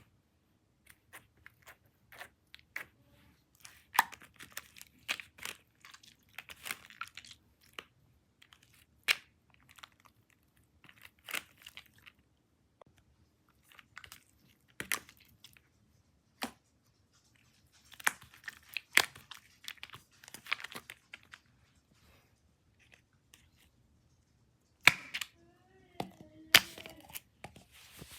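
Slime being squeezed and pulled by hand: irregular sticky pops, clicks and crackles, coming in short clusters with pauses between.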